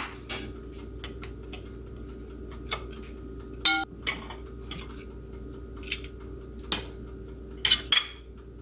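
Kitchen dishes and utensils clattering: scattered knocks and clinks, one ringing clink a little under four seconds in, and a quick cluster of knocks near the end.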